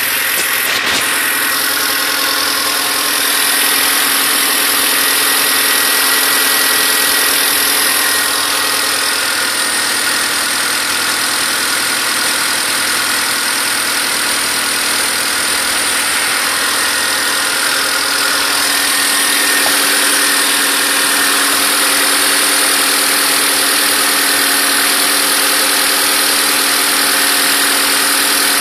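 Honda Civic EG4 engine idling steadily, with one sharp click about a second in. The engine has a clacking noise that the owner cannot place.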